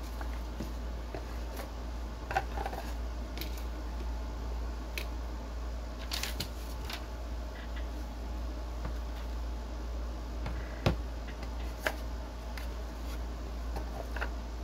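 Handling sounds on a desk: a cardboard phone box and its insert being moved and set down, with scattered taps and clicks. The loudest knock comes about eleven seconds in, all over a steady low hum.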